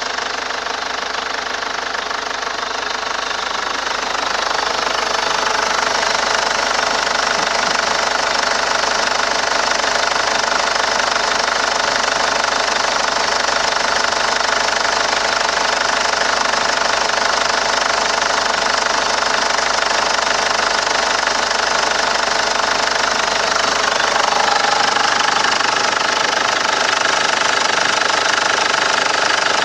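Ford Ranger's 3.0-litre four-cylinder Duratorq TDCi turbo-diesel engine idling steadily, growing slightly louder about three-quarters of the way through.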